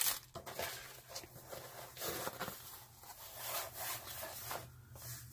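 Plastic release film on a rolled diamond painting canvas rustling and crinkling in soft, intermittent swishes as it is unrolled, flattened and lifted at the edge by hand.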